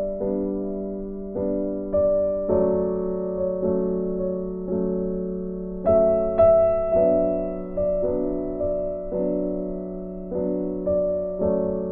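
Background piano music: a slow run of single notes and chords, each note struck and left to fade.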